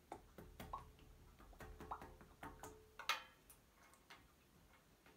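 Faint, irregular clicks and taps of small plastic slime tubs being handled and set down on a tabletop, thinning out over the last couple of seconds.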